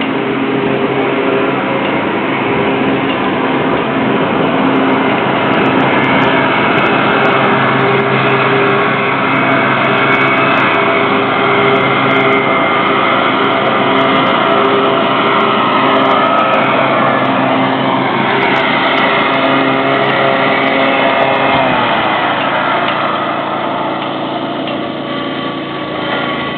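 A machine's motor running steadily at a fixed pitch. About 21 seconds in, its pitch drops and it eases off.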